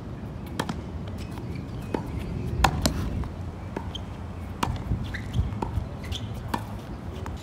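Tennis balls being struck with rackets and bouncing on a hard court during a rally: a string of sharp pops at uneven intervals, the loudest about two and a half seconds in, over a steady low background rumble.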